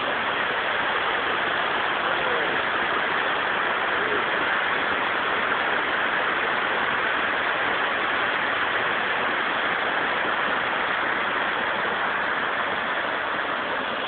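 Steady rushing of a 29-metre waterfall, an even hiss of falling water that holds at one level throughout.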